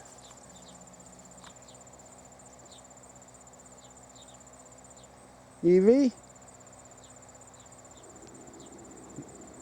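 Insects chirring in a continuous, steady high-pitched trill.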